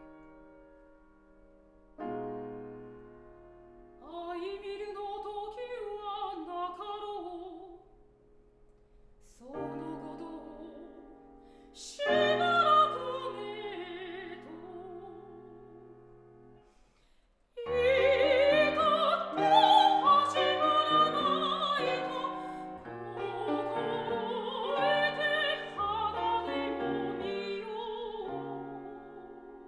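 Soprano singing a Japanese art song in a classical style with piano accompaniment, her voice wavering with vibrato in phrases over sustained piano chords. The piano plays alone at first, the voice enters a few seconds in, and the singing and piano swell to their fullest in the second half.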